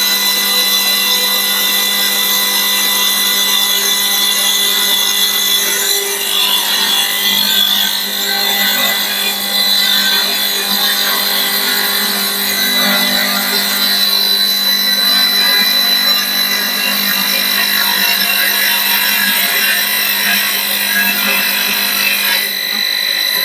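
CNC wood-turning lathe cutting a spinning wooden workpiece: a steady scraping cut over a constant motor whine. The cutting noise thins briefly near the end.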